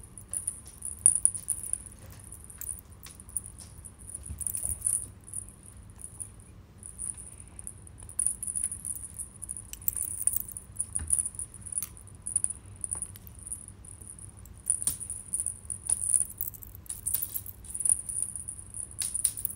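Small jingle bell jingling in quick, irregular shakes, with light clicks and taps, as a kitten bats and tugs at a cat toy.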